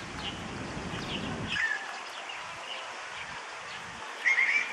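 Sparrows chirping in short, scattered calls, with a louder run of quick chirps near the end. A low rumble fills the first second and a half.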